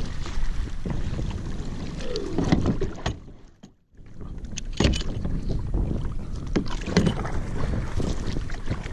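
Wind buffeting the microphone and choppy water slapping against a plastic kayak hull, with a few sharp knocks. The sound cuts out almost completely for about half a second a little past the middle.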